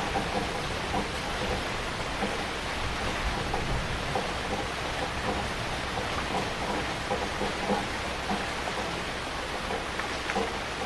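Heavy rain falling steadily, a constant dense hiss with many small individual drop impacts scattered through it.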